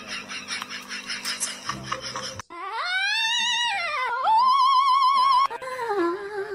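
A high wailing voice held with a quick, even wobble in pitch. It rises and falls, holds, then drops to a lower note near the end. Before it, in the first couple of seconds, there is a rhythmic sound like laughter.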